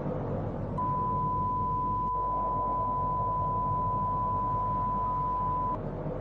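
A single steady electronic beep tone held at one pitch for about five seconds, starting just under a second in, over a steady low background noise. It stands for scientific instruments beeping a warning before a volcanic eruption.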